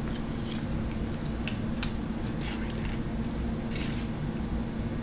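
Close-up eating and handling sounds at a table: scattered small clicks, crinkles and mouth noises as a paper packet and a piece of fried food are handled, with a longer crinkle or crunch about four seconds in. A steady low hum runs underneath.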